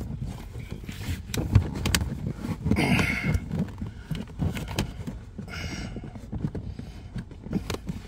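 Plastic footwell trim panel being pushed into place by hand under the glove box: scattered light plastic clicks and knocks, with a short scrape about three seconds in and another about six seconds in.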